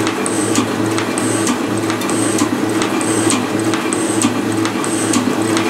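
Vertical milling machine running, its end mill cutting a pocket into a metal tool-post block: a steady machine hum with a high note and light ticks coming and going about once a second.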